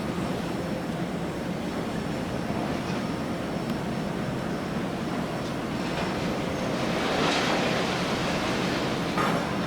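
Steady low drone of a coastal tanker's engine under way, with wind and the wash of waves. A louder rush of water swells up about seven seconds in and dies away.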